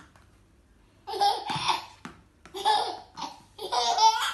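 A baby laughing in three bursts, each about a second long, the first starting about a second in.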